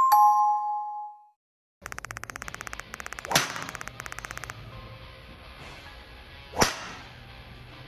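A short two-note chime rings once, then rapid ticking for a few seconds. Golf clubs strike balls on a driving range twice, about three seconds apart, the second a driver; these are the loudest sounds.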